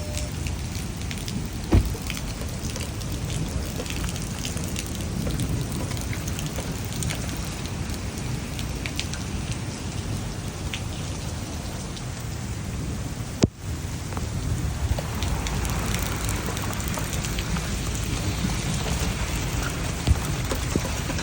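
Heavy rain pouring steadily in a storm, with a low rumble of wind and scattered sharp ticks of rain and hail striking, and a single loud knock about two seconds in.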